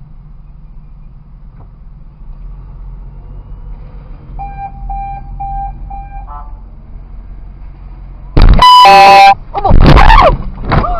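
Car horn blasting loudly for about a second, a warning at the SUV ahead as it backs into the stopped car, followed by loud shouting. Before it, four short electronic beeps over a car's low, steady running hum.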